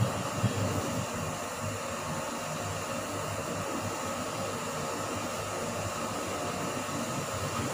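Steady fan-like hum of air conditioning.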